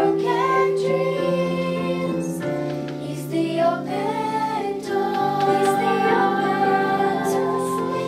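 A group of children and young women singing a Christian song together, several voices holding long, slow notes.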